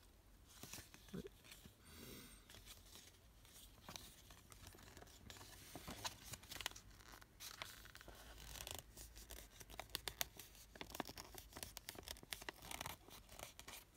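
Faint rustling and crisp ticking of paper timetable leaflets being handled, the small sounds coming thicker in the second half.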